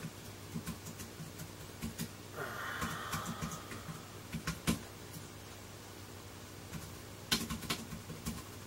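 Typing on a slim Apple aluminium keyboard to enter a password: soft, irregular key clicks, with a quick run of keystrokes near the end.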